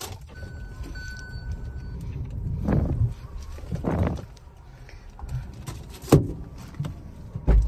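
Inside a Hyundai car's cabin: a low steady hum runs throughout. A thin electronic warning chime sounds for about a second and a half near the start. A couple of louder handling noises follow, and a sharp click comes about six seconds in.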